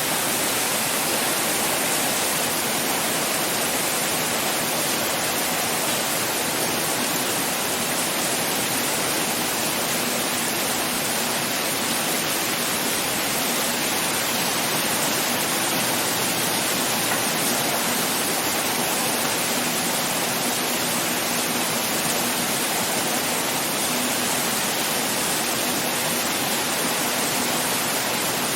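Heavy rain pouring steadily, an even hiss of falling water with no thunder.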